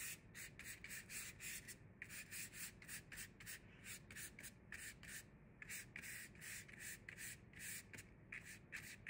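Paintbrush bristles scrubbing paint across paper in quick back-and-forth strokes, a faint rhythmic rubbing hiss of several strokes a second.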